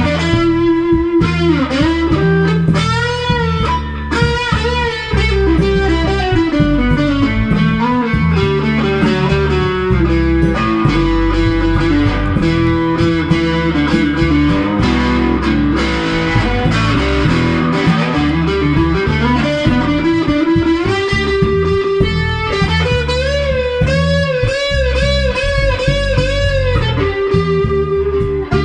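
Electric guitar played live through an amplifier: a lead line with bent, wavering notes over low accompanying notes from a second player.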